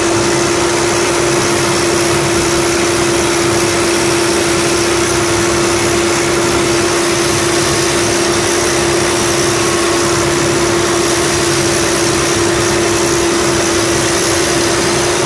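Sand dredge's diesel engine running steadily at high throttle and driving the suction pump, with a steady whine over the engine noise, as the suction arm is lowered toward the riverbed sand.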